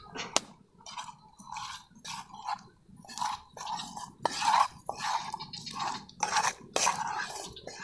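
A bamboo stick stirring oiled, boiled field-snail meat in a cooking pot: irregular wet squelching strokes, one or two a second, with a few sharp clicks of the stick against the pot.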